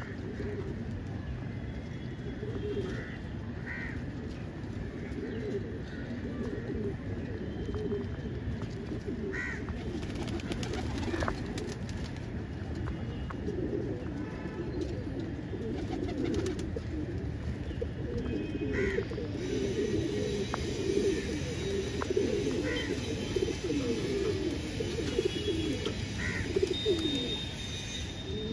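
Domestic pigeons cooing close by, a low warbling coo that goes on throughout and grows busier in the second half.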